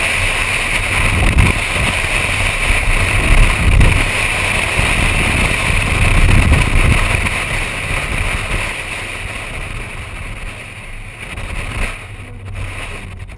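2004 Pontiac GTO's LS1 V8 running hard through an autocross course, with wind noise on the outside-mounted microphone. The engine is loudest in the first half and fades over the last few seconds as the car slows.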